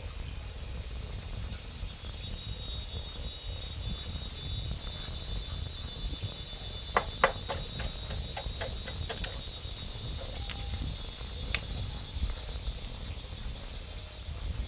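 Metal parts and tools clinking as a Cub motorcycle engine's cylinder head is worked loose and taken off by hand: a quick run of sharp clinks about halfway through and one more a few seconds later. An insect trills steadily behind it.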